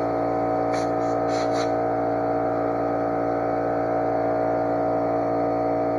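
Electric air compressor running steadily, building its tank pressure back up, with a few brief faint hisses about a second in.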